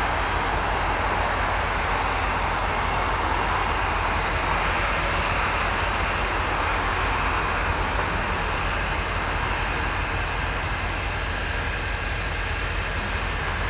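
Steady rumble and hiss from a standing freight train with its diesel locomotives running, holding even throughout.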